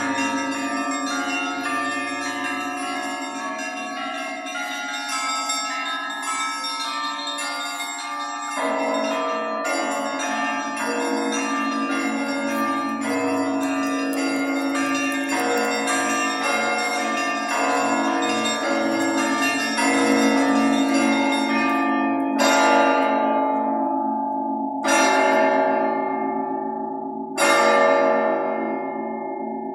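Several church bells rung together in a quick, dense peal. About 22 seconds in the quick ringing stops, and three single full strokes follow about two and a half seconds apart, each left to ring out.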